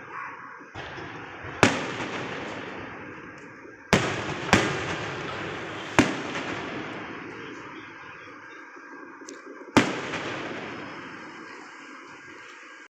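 Fireworks going off across the city: five sharp bangs, two close together around four seconds in, each dying away slowly over a continuous rumble and crackle of more distant fireworks.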